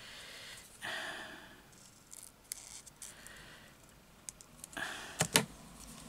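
Hand scissors snipping out a small paper sticker cut-out: a few light, sharp snips, with two louder clicks about five seconds in.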